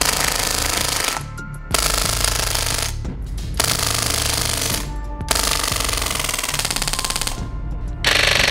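Umarex Legends M1A1 Thompson CO2 BB gun firing on full auto: four rapid bursts of a second or two each with short pauses between them, and a fifth burst starting near the end. Electronic background music with a steady beat plays underneath.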